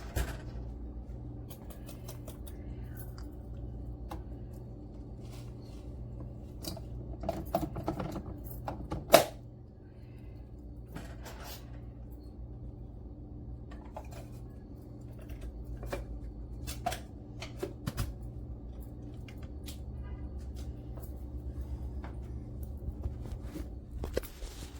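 Scattered clicks and knocks of objects being handled and set down, with one sharp knock about nine seconds in, over a steady low electrical hum.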